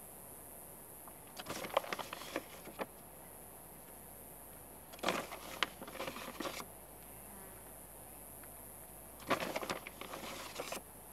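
Yellow plastic measuring cup scooping baking soda from a bag and tapping it out onto paper plates: three short bouts of rustling and light clicks.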